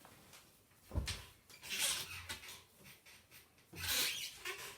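Household handling noises with no speech: a dull thump about a second in, then two short spells of soft rustling.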